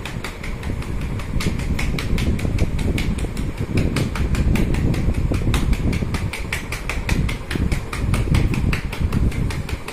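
Rapid, steady tapping of a gloved hand on a patient's chest, about five or six strokes a second, over a low rumble. This is chest physiotherapy percussion, used to loosen mucus in the lungs.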